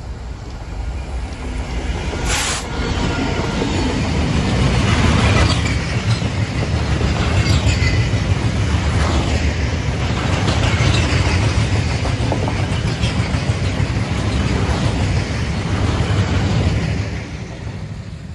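Freight train hauled by a Class 66 diesel locomotive passing close by at speed: the engine's approach builds into a long, steady rumble of box wagons rolling over the rails, with repeated wheel clacks over the joints. The rumble drops away near the end as the last wagon passes.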